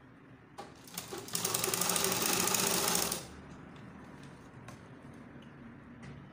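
Sewing machine stitching a line on an elastic waistband in one fast burst of about two seconds that starts just over a second in. A few clicks come before it, and it drops back to a quieter rattle afterwards.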